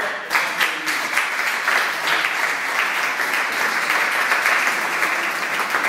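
Audience applauding, many hands clapping at once, breaking out suddenly and holding steady.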